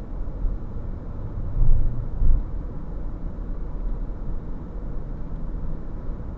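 Low, steady rumble of a car driving slowly, heard from inside the cabin, with two louder low thumps about two seconds in.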